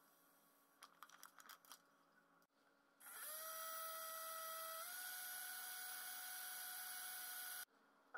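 Cordless drill spinning a stirring rod in a jar of copper sulfate solution, mixing a copper-plating electrolyte: a steady motor whine that starts about three seconds in, steps up slightly in pitch partway through and cuts off suddenly near the end. Before it, light crackling as the crystals are poured from a foil packet.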